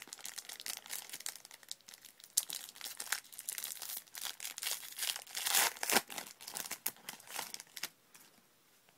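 Foil Yu-Gi-Oh booster pack wrapper being torn open and crinkled: irregular crackling that stops about eight seconds in.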